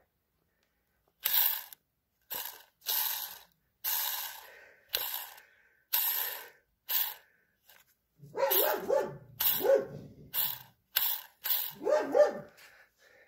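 A dog barking over and over, roughly once a second at first and in quicker runs in the second half.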